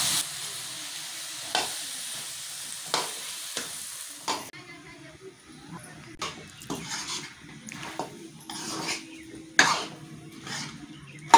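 A metal spoon scrapes and knocks against a metal kadhai as potatoes and mashed green peas are stirred and fried (bhuna) for aloo nimona. A soft sizzle under the first few seconds fades out about four seconds in.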